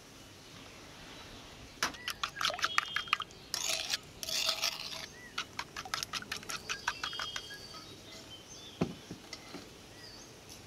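Metal spoon stirring a thick marinade in a ceramic bowl: rapid clinks and scrapes of spoon on bowl starting about two seconds in and going on for several seconds, then a single thump near the end.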